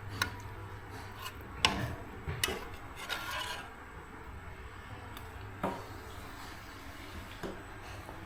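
Kitchen handling sounds: a few scattered light knocks and clicks with some rubbing and scraping, over a steady low background hum.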